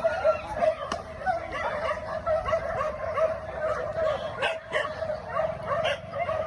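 A pack of hunting dogs barking and yelping continuously, many voices overlapping without a break.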